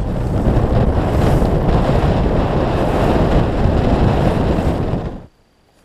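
Wind buffeting the microphone over the rush of choppy water against the hull of a bass boat running across the lake. It cuts off suddenly about five seconds in.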